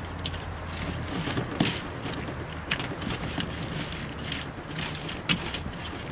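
Fingers rubbing wet, silty pond mud through a metal mesh sieve: a continuous gritty scraping with a few irregular sharp clicks, the loudest about one and a half seconds in and near the end.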